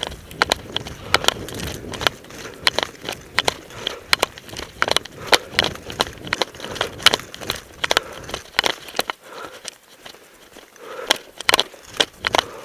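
Footsteps crunching over frozen, snow-dusted leaf litter and twigs: an irregular run of sharp cracks and crunches, several a second, with a quieter stretch in the second half.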